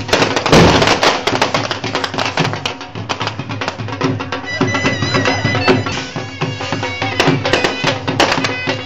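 Traditional folk music playing, with fireworks going off over it. There is one loud bang about half a second in and sharp crackling throughout.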